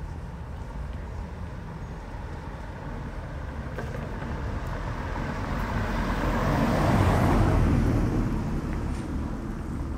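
A car drives past, its engine and tyre noise swelling to a peak about seven seconds in, then fading away.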